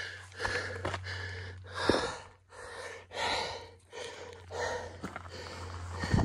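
A hiker breathing hard while climbing a steep trail: several heavy, noisy breaths about every second and a half, with a few footsteps on loose dirt and gravel.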